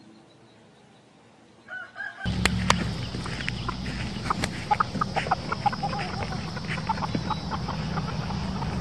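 Chickens clucking in short, scattered calls over a steady low hum and clicks, starting abruptly about two seconds in after a faint opening.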